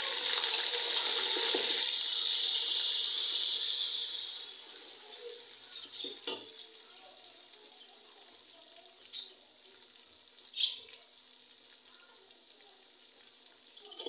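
Ground onion paste sizzling loudly as it hits hot ghee in a cooking pot, being fried to take away its raw taste. After about four seconds the sizzle dies down to a quieter frying hiss as it is stirred, with a few sharp clicks.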